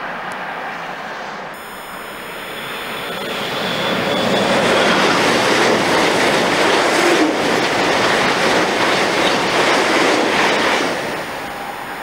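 ICE high-speed electric train passing at speed through snow: a rushing noise that builds over the first few seconds, stays loud through the middle and eases off near the end, with a thin high whine over it.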